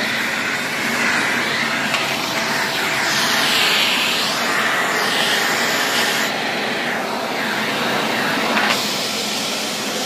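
A new Philips bagless canister vacuum cleaner running steadily on its first try-out. Its rushing sound swells and shifts in tone as the floor nozzle is moved about.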